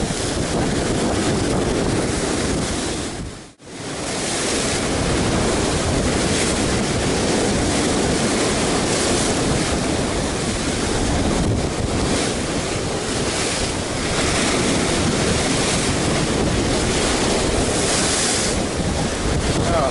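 Rough sea surf breaking and foaming against rocks, with wind buffeting the microphone. The sound drops almost to nothing for a moment about three and a half seconds in.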